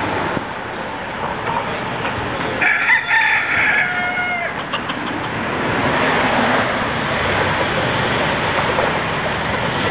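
A rooster crows once, a drawn-out cock-a-doodle-doo lasting about two seconds that starts about three seconds in and falls in pitch at its end, over steady background noise.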